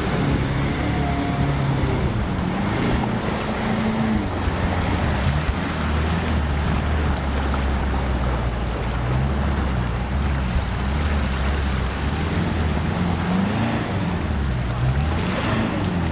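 Off-road vehicle engine running and revving up and down, with heavy wind noise on the microphone.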